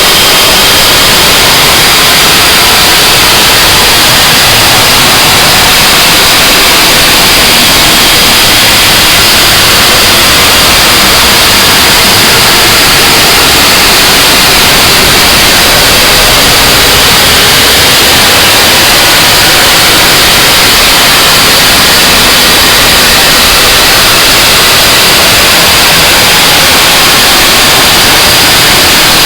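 Harsh noise wall music: a dense, unchanging wall of distorted static at a very high level, heaviest in the upper middle range, with no rhythm or breaks.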